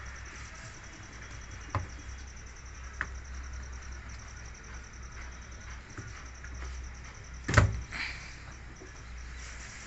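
Scattered knocks and clicks of hands working on a front-load washing machine's door, the loudest one about seven and a half seconds in, over a low steady hum.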